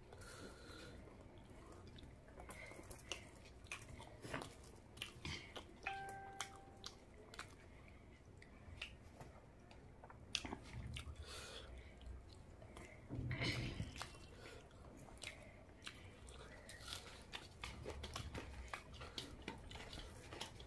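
Close-miked chewing and wet mouth clicks of a person eating curried rice and boiled egg by hand, with soft squishing as the hand mixes and presses the rice. The clicks come irregularly, several a second at times.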